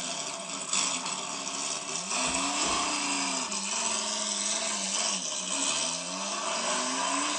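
Toy vehicle making its engine noise: a steady rushing sound with a low tone that wavers up and down.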